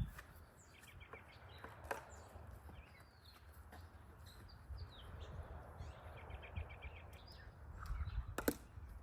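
Songbirds chirping, with a quick trill of repeated notes past the middle, over a low rumble of wind on the microphone. A single sharp knock near the end.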